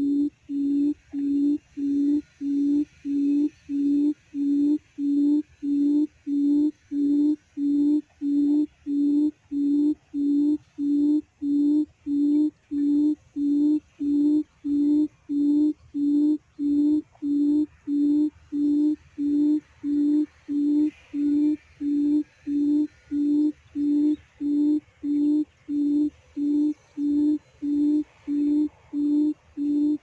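A quail lure call, a low hoot repeated evenly about one and a half times a second without a break, played on a loop to draw quail to the trap. A faint insect buzz runs underneath.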